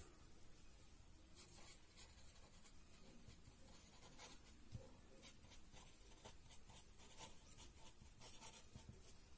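Pink felt-tip marker writing on paper: a run of faint, short pen strokes as a heading is written out.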